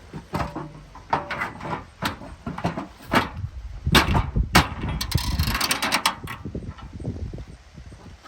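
Irregular clanks, knocks and rattles of the damaged lawn tractor's metal parts being handled and worked on by hand, with a denser stretch of rattling about four to six seconds in.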